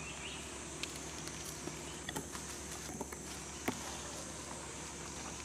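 Steady high-pitched insect drone over a low hum, with a few faint sharp clicks, the clearest nearly four seconds in.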